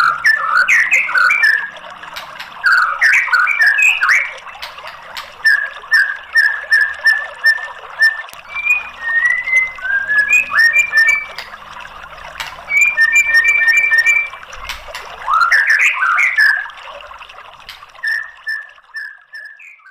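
White-rumped shama singing. Bursts of quick rising and falling whistles alternate with runs of clear repeated notes, over a steady hiss, and the song fades out near the end.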